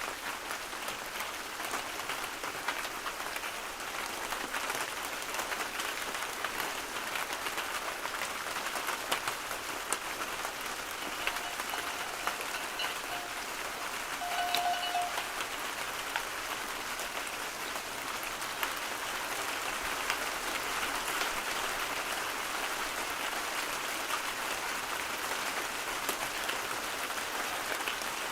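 Steady rain, a dense even hiss of drops with many small sharp ticks of individual drops hitting a surface. A faint thin tone sounds briefly about halfway through.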